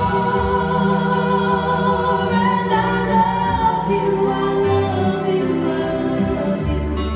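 Slow female vocal song with sustained accompaniment and low bass notes, played through Altec 614 speaker cabinets fitted with Realistic Americana 12-inch Tri-axial drivers.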